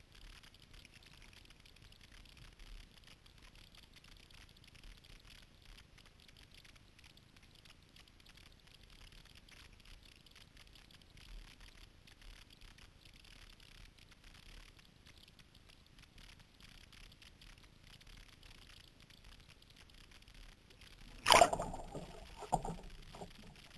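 Faint water noise from a kayak paddle dipping and the hull moving through the water. About 21 seconds in, a loud splash as the kayak turns over and the camera goes under, followed by a few quieter underwater bubbling splashes.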